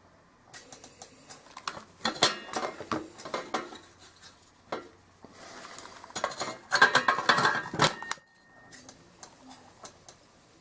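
Metal parts of a Coleman lantern clinking and rattling as they are handled, in two irregular spells of sharp clicks and knocks, the second the louder.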